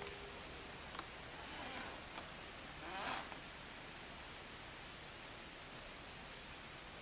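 Quiet room tone with a soft click about a second in, a brief rustle about three seconds in, and a few faint, very short high chirps after it.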